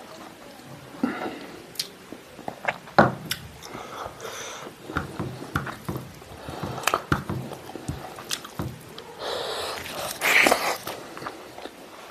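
Eating sounds: wet chewing and lip smacking with many small irregular clicks, and fingers squishing rice and gravy. A longer, louder rush of noise comes about nine seconds in.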